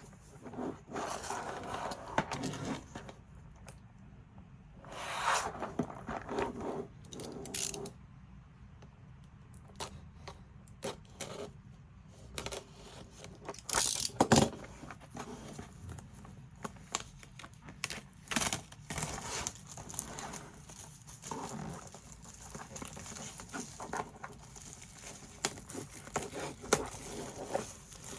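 Unboxing of a keycap set: irregular scraping, tearing and rustling of packaging, with scattered light clicks as the box and its contents are handled, the sharpest click about halfway through.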